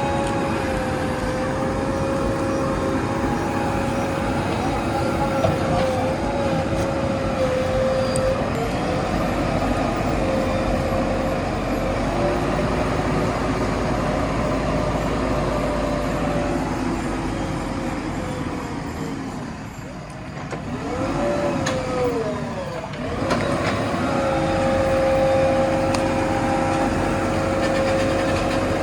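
Backhoe loader's diesel engine running steadily while working. About two-thirds of the way through, the engine speed sags and the sound drops briefly, then the revs climb back up and it runs steadily again.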